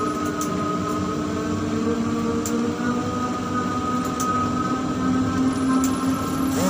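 Steady mechanical hum of a tower crane's drive machinery heard in the operator's cab, with a couple of held whining tones and a few faint ticks.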